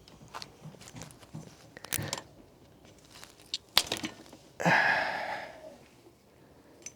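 Hands working on e-bike kit parts: a series of sharp clicks and knocks, then a loud tearing rasp of about a second that fades out.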